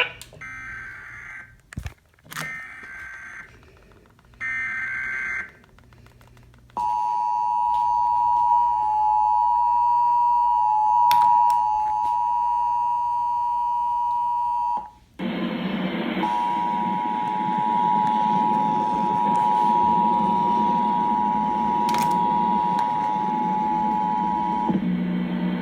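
Emergency Alert System tones: three short screechy digital data bursts of the alert header, then the two-note EAS attention signal held for about eight seconds. It cuts off, and after a brief break a second attention signal sounds for about eight more seconds over a steady hiss.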